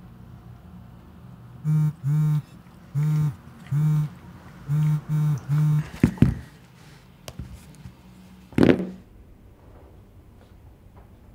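Smartphone vibrating on a desk with an incoming call, buzzing in seven short pulses over about four seconds. A sharp knock follows about six seconds in, then a heavier thud near nine seconds.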